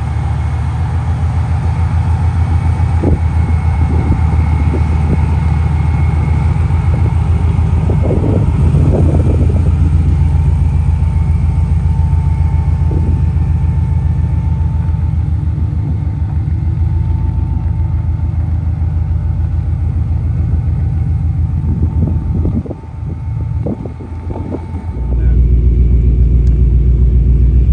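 ProCharger-supercharged engine of a Chevy OBS pickup idling with a steady, evenly pulsing exhaust rumble. A little after 22 seconds it briefly drops away, then about 25 seconds in it comes back louder and heavier.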